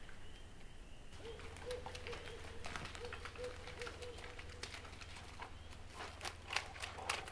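A dog running through dry leaves, sticks and brush on the forest floor, its crackling footfalls growing louder and closer near the end, over a faint steady hum.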